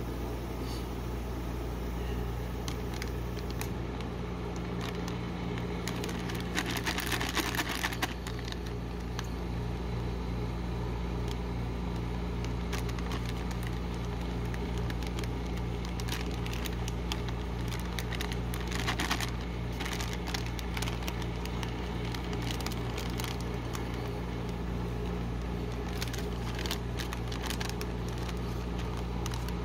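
Foil snack bag of chocolate-covered pretzels crinkling and rustling in gloved hands, with louder bursts of crinkling twice and crackling near the end as the pretzels are crushed inside the bag. Under it runs the steady low hum of the rolled-ice-cream cold-plate machine.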